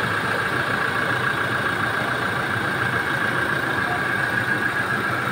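Toyota Hilux pickup's engine idling steadily with the hood open, running on fresh oil after an oil change.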